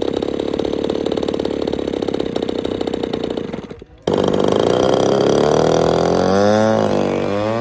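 A radio-controlled P-51 Mustang model's 20cc gasoline engine runs steadily while the plane is held on the ground. After a brief break about four seconds in, the engine runs louder as the plane rolls across the strip, its pitch dipping and then rising near the end.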